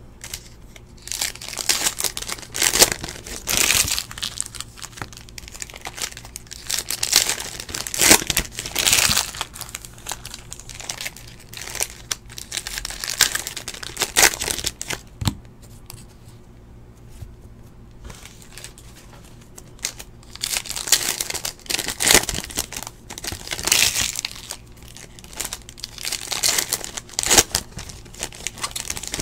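Foil wrappers of 2017-18 Panini NBA Hoops basketball card packs crinkling and tearing as the packs are ripped open by hand, in repeated bursts, with a lull of a few seconds a little past halfway.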